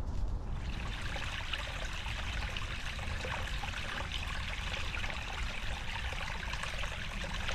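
Steady rush of running water, starting just under a second in, over a low rumble.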